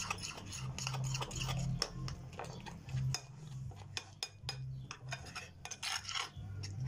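Metal spoon stirring thick gram-flour batter on a ceramic plate, with irregular clinks and scrapes as it knocks and drags against the plate.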